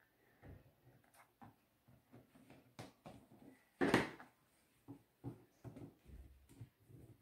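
Small clicks and taps of screws and fingers on a plastic clock back plate as the screws are fitted back in by hand, with one louder knock about four seconds in.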